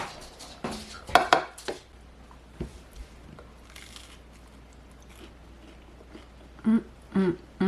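Kitchen clatter: utensils and dishes knocking and clinking, with a cluster of sharp knocks in the first couple of seconds, then a few faint ticks.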